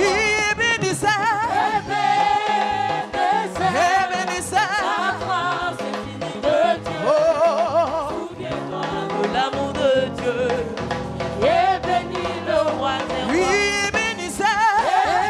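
Live gospel praise music: a voice singing a melody with wavering vibrato over a band, with tambourines jingling along.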